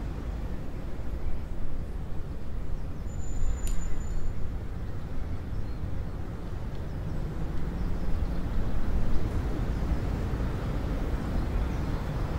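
Outdoor background ambience: a steady low rumble with no clear events.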